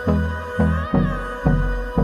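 Background music with a steady beat of deep bass pulses about twice a second under sustained synth tones.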